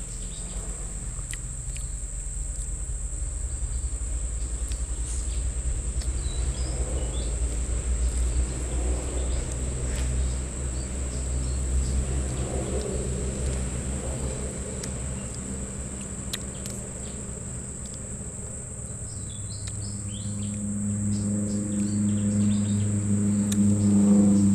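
Steady high-pitched insect drone over a low rumble. A low hum comes up near the end and grows louder.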